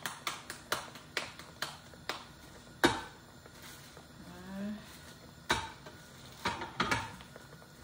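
Quick sharp pats of hands on tortilla dough, about three a second, then a louder knock about three seconds in and a few more knocks near the end as a tortilla press is worked.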